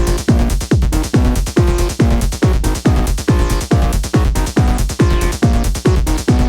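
Electronic techno-trance music played live on hardware synthesizers and a groovebox: a steady four-on-the-floor kick drum about twice a second, with a short, repeating synth bass figure between the kicks.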